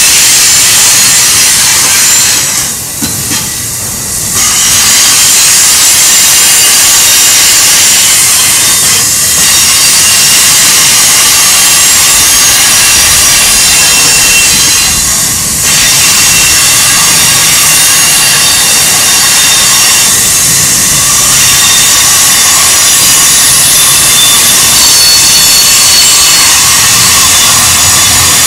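Double-stack intermodal well cars rolling past at track side, giving a loud, steady rush of steel wheels on rail. Thin high-pitched squealing tones run through it, typical of wheel flanges grinding on a curve. The noise dips briefly a few seconds in and again near the middle.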